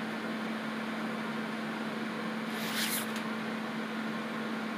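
A steady electrical or mechanical hum with background room noise, and a brief hiss a little after the middle.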